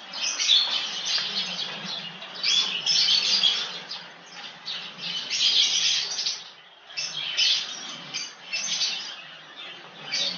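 Small birds chirping and chattering in quick, high-pitched bursts of about a second each, over a faint low background hum.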